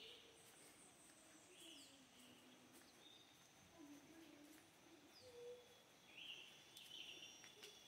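Near silence: faint outdoor ambience with a few distant bird chirps and a faint steady high-pitched hum.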